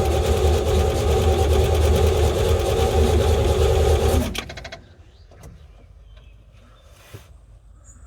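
Chevy 350 small-block V8 running steadily with a fast, even pulse, then stopping about four seconds in and winding down quickly.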